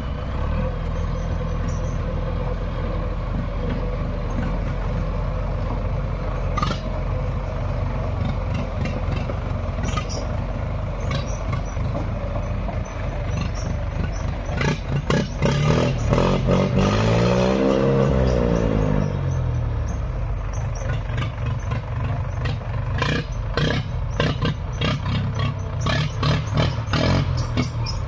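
A heavy diesel engine runs steadily, with a low clatter. Around the middle its pitch rises and falls back once, and short knocks and clanks come through, more of them in the second half.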